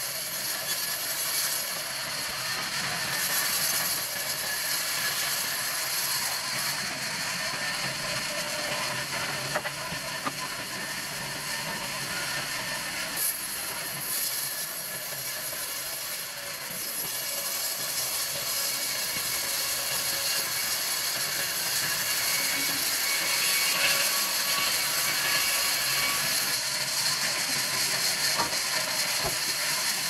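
Large vertical band saw ripping a palm log lengthwise: a steady hissing cut with a few sharp clicks.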